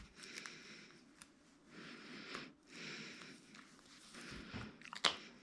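Close, hissy breathing, a breath about every second, with small handling clicks and one sharp click about five seconds in.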